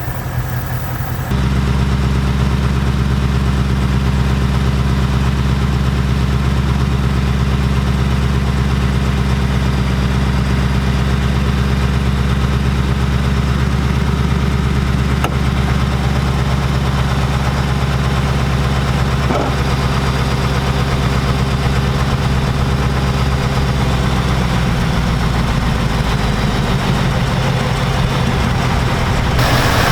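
Ford Mustang GT's 5.0-litre V8 idling steadily, getting louder about a second in. No typewriter tick is heard; the owner credits a Rislone oil additive with curing it.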